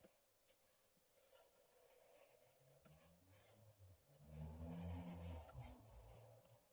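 Felt-tip marker drawn across paper in long strokes, a faint scratchy rubbing that comes and goes stroke by stroke. A faint low hum sits under it about halfway through.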